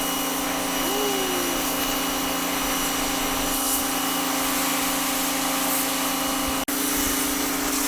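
Pressure washer running: a steady pump-motor hum with the hiss of the water jet spraying, which drops out for an instant near the end.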